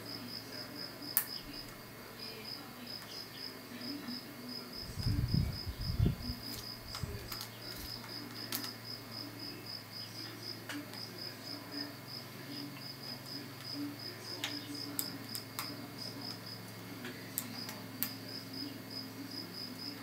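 Lock pick and tension wrench working the pins of a five-pin Vachette 2000 brass euro cylinder: scattered faint sharp metallic clicks, with a few dull bumps about five seconds in. Under it runs a steady high-pitched pulsing, about four to five pulses a second.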